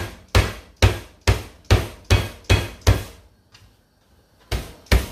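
Glass bottle pounding fresh ginger root on a plastic cutting board to smash it: sharp knocks about two a second, then a pause of over a second, then more knocks near the end.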